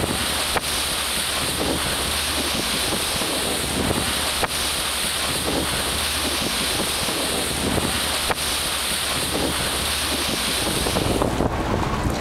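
Wind buffeting the microphone aboard a boat at sea, over the steady low drone of the boat's engine and the wash of water. Three faint sharp ticks fall through it, and the wind hiss eases near the end.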